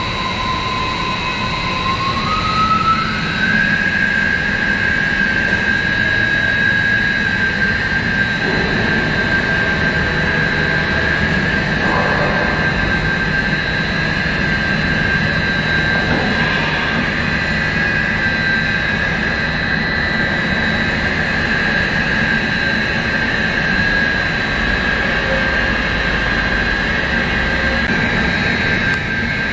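WANLONG PLC-600 bridge saw for stone, its frequency-converter-driven motor spinning up with a whine that rises in pitch over the first few seconds. The whine then holds steady over a constant low hum.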